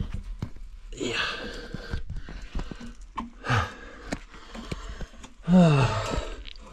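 A person army-crawling through a rocky lava tube: heavy breaths and a loud falling groan near the end, with small scrapes and knocks of hands and knees on the rock.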